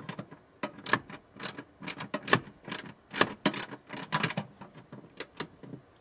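Hand ratchet wrench clicking in short, irregular runs as a bolt is tightened to fasten a metal mounting bracket.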